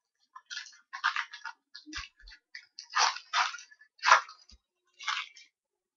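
Trading-card pack wrapper and cards being handled: an irregular run of crinkles and rustles, with the loudest ones a little past the middle.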